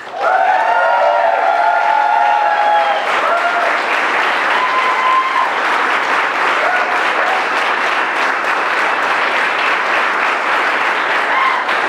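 Crowd applauding steadily after a rally speech line, with cheering voices over the clapping in roughly the first three seconds.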